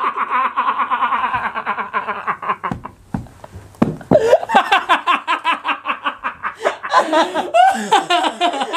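Young men laughing hard in quick pulsing bursts. Partway through the laughter breaks off for about a second, with a couple of dull thumps, then starts again.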